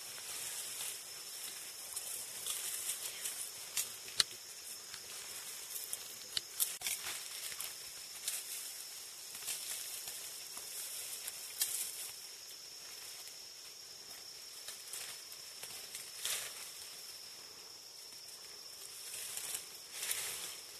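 Mountain gorillas moving and handling plants in dense undergrowth: leaves rustling, with scattered sharp snaps and cracks of stems and twigs.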